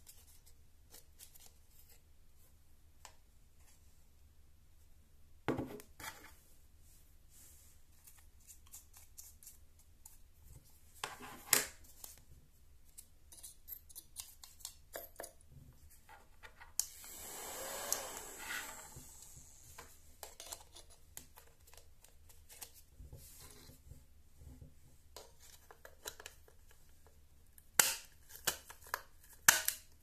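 Plastic parts of a mini desktop vacuum cleaner being handled and fitted together: sparse sharp clicks, a rustling scrape lasting about two and a half seconds midway, and a quick run of snaps near the end as the housing is put back together.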